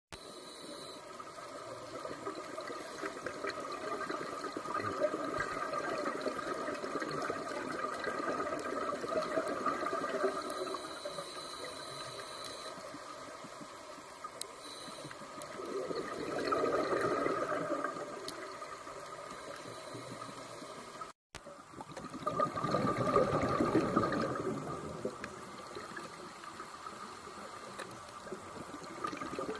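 Underwater sound of a scuba diver's exhaled bubbles rushing from the regulator, in swells several seconds apart.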